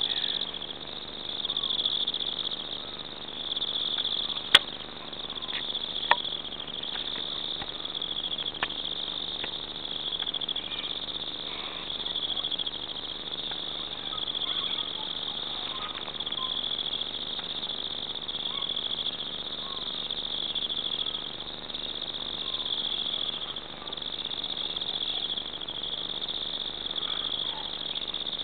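Insect chorus: a steady high-pitched trill that swells and eases every couple of seconds. Two sharp clicks come about four and a half and six seconds in.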